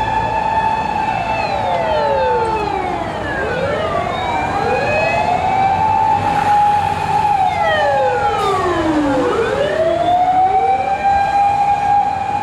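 Electronic Whelen wail sirens on fire engines responding to a call, at least two of them out of step. Each rises, holds a long steady note, then slides down before climbing again, over the low rumble of the trucks on the road.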